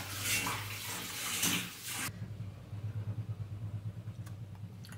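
Water running from a kitchen tap for about two seconds, shut off suddenly, leaving a low steady hum with a couple of faint clicks.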